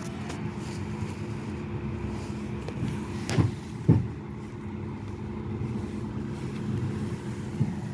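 Steady low hum of a running motor, with two short knocks about three and a half and four seconds in.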